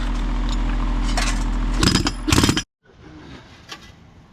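An engine running steadily, with clinks and scrapes of steel tools on pavement, then a short loud rattling burst of rapid strokes about two seconds in. The sound cuts off abruptly just after, leaving a much quieter background with a few faint clicks.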